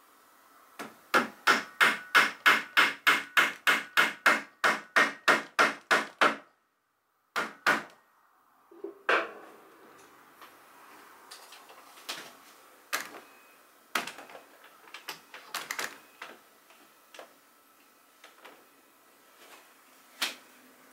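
A fast, even run of about eighteen sharp wooden taps, three to four a second, typical of a dowel peg being tapped into a drilled hole in a wooden pegboard rack. After a break comes a heavier knock, then scattered lighter knocks and clicks as a rifle is set onto the pegs.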